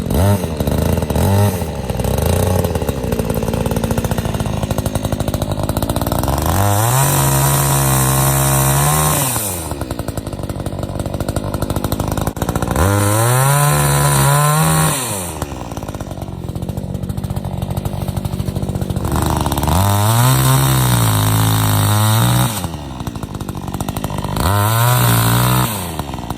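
Two-stroke gas chainsaw idling and revved up to high speed four times, each time rising in pitch, holding steady for a couple of seconds and dropping back to idle.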